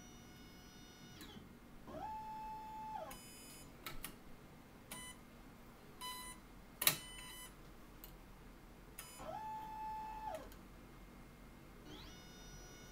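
Santinelli (Nidek) lens tracer's motors running as its stylus pin traces a pattern: a steady high whine that drops away about a second in, then two motor whines that rise in pitch, hold, and fall away again, several seconds apart. Between them comes a run of small clicks with one sharp click, the loudest sound, near the middle. The whine rises back in near the end.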